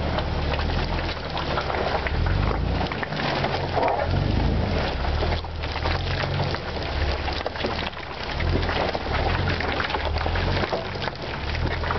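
A Jeep's engine running at low speed, its rumble swelling and easing, while the mud-terrain tyre churns through wet, slurpy mud with a constant crackle and splatter close by.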